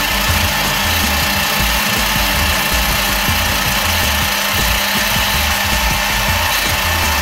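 Small bench metal lathe running steadily, its motor and gears giving a steady whine, while the tool bit turns a brass workpiece.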